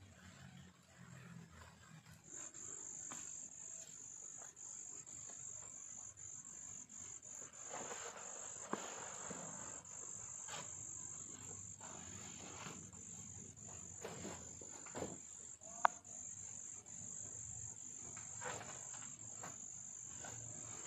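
Insects chirring in one steady, high-pitched trill that sets in about two seconds in, with faint rustling and a few sharp knocks, the loudest near the end.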